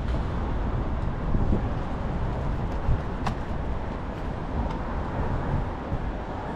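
Steady city street noise with a low rumble, typical of traffic passing. One sharp click sounds about three seconds in.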